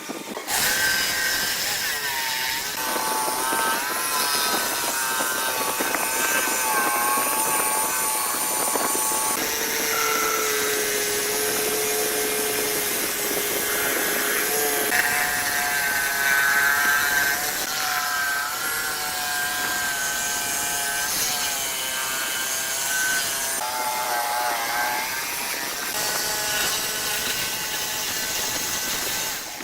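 Power tools cutting or sanding wood: a motor's whine over the rasp of the wood, its pitch shifting with the load and changing abruptly every several seconds.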